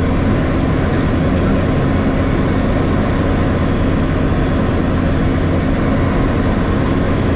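Cabin noise of a Diamond DA40 light aircraft in flight: its piston engine and propeller running steadily, heard inside the cockpit as a constant, even drone.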